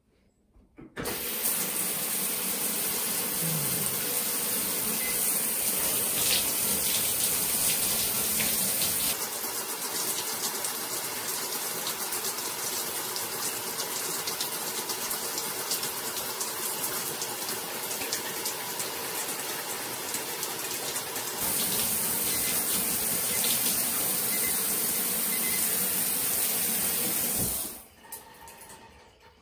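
TOTO handheld shower head spraying water onto a hand and the tiled wall. The flow comes on about a second in, goes a little softer and duller for roughly twelve seconds in the middle, and shuts off shortly before the end.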